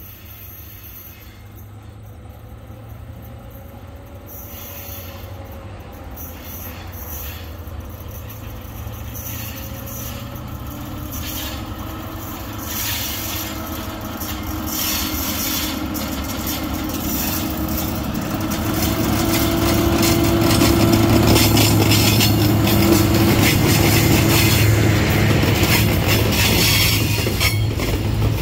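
Tasrail TR class diesel-electric freight locomotive approaching and passing, its engine hum growing steadily louder to a peak about two-thirds of the way through. Loaded log wagons then roll by, with a rapid clicking of wheels over the rail that thickens as the train comes close.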